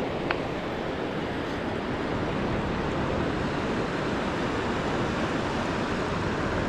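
Ocean surf washing steadily with wind buffeting the microphone, and a single brief click about a third of a second in.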